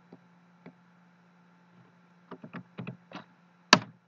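Scattered clicks from a computer keyboard and mouse: two faint taps, then a quick run of clicks, and one sharper, louder click near the end. A faint steady low electrical hum runs underneath.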